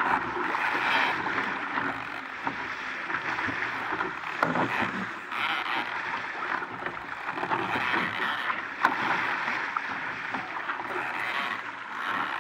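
Water rushing and splashing along the hull of an RS Aero sailing dinghy under way, in uneven surges. Two sharp knocks come through, one about midway and one near three-quarters of the way through.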